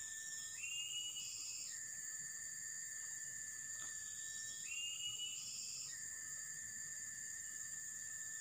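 Steady high-pitched drone of forest insects, broken twice by a higher call lasting about a second, the two calls about four seconds apart.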